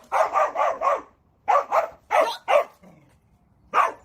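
Dog barking repeatedly in short, quick barks: a run of four, a pause, three more, then a single bark near the end.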